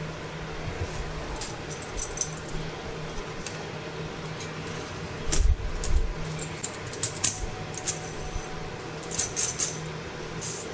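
Light metallic clinks and taps of thin steel differential carrier shims being handled, with a dull knock about halfway through, over a steady hum.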